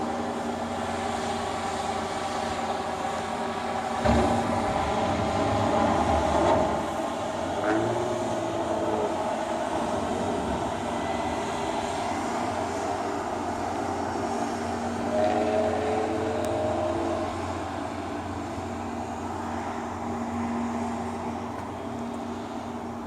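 A motor running steadily, its hum made of several held tones, with louder stretches and brief shifts in pitch about four seconds and again about fifteen seconds in.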